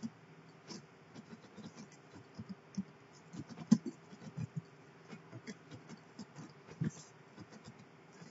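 Computer keyboard typing: faint, irregular key clicks, with a louder keystroke about halfway through and another near the end.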